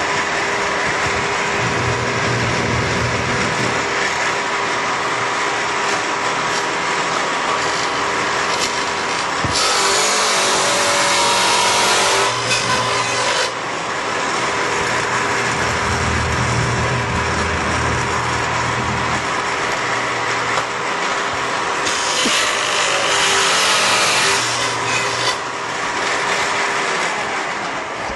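A Shopsmith table saw running with a dado blade, its steady motor whine broken twice by louder, harsher spells as the blade cuts grooves across a wooden board. Near the end the whine falls in pitch as the blade winds down.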